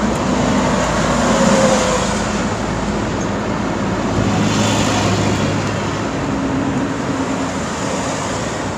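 A motor vehicle driving fast: a steady engine hum under dense road noise, played as an inserted sound effect.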